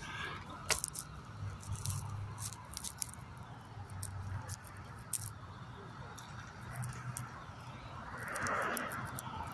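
Faint background noise with scattered light clicks and ticks, and a soft swell of noise that rises and falls near the end.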